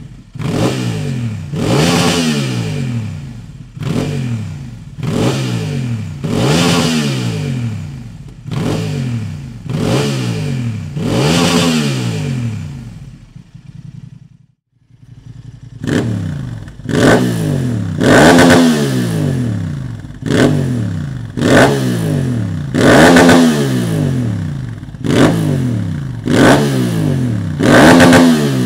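Honda XL750 Transalp's parallel-twin engine revved in quick throttle blips at standstill, each rising and falling, about one every second and a half, through a Dominator MX2 slip-on silencer. After a short break about halfway, the engine blips on the same way through a Dominator HP6 titanium full exhaust system, a little louder.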